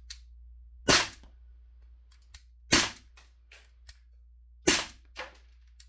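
CO2-powered airsoft BB gun, run on a 12-gram cartridge, fired three times about two seconds apart, each a sharp crack followed by faint ticks of BBs hitting the target and the wall behind it.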